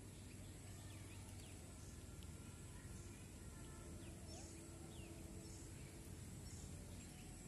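Faint rural outdoor ambience: a low steady hum with scattered faint, short bird chirps.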